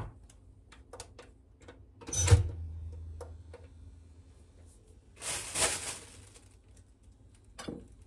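SMEG toaster's lever pushed down with a clunk about two seconds in, lowering frozen bread to toast on the defrost setting, followed by a low hum. Small clicks of dishes on a stone counter, and a short scraping rustle around five seconds in.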